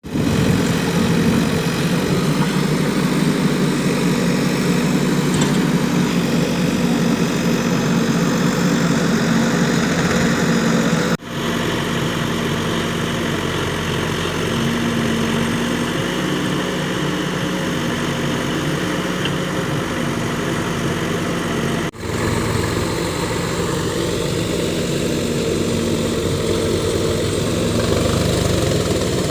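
Diesel engine of heavy farm or construction machinery running steadily. The sound breaks off and resumes at a slightly different pitch twice, about a third and two thirds of the way through.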